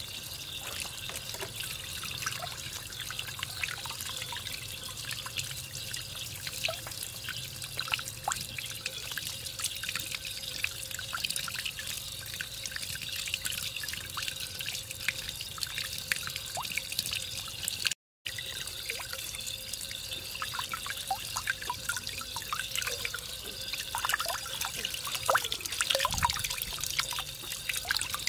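Running water splashing over hands and a chicken being washed and trickling into a steel basin of water, with many small splashes and drips. It cuts out for a moment about two-thirds of the way through.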